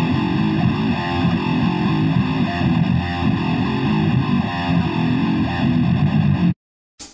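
Distorted electric guitar riff through effects, opening a heavy metal song. It cuts off suddenly about six and a half seconds in, leaving a short gap broken by one brief hit near the end.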